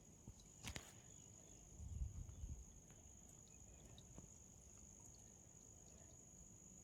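Faint, steady, high-pitched insect chirring. A sharp click comes about a second in and a low bump about two seconds in.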